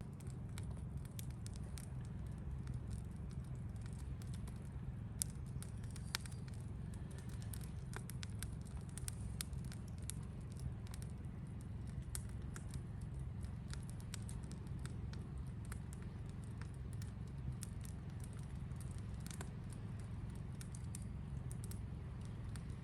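Campfire crackling and popping: irregular sharp snaps scattered over a steady low rumble.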